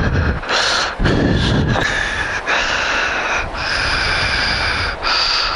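A person breathing heavily close to the microphone, noisy breaths following one another with short pauses between them.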